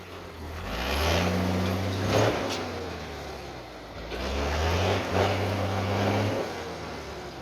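1988 M35A2 deuce-and-a-half's turbocharged multifuel diesel engine revved up twice under the throttle, each time held briefly at higher revs and then dropping back toward idle.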